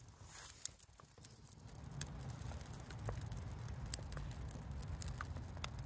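Small fire of silver birch bark and kindling crackling with a few sharp pops, as thin twigs are laid on it, over a low rumble.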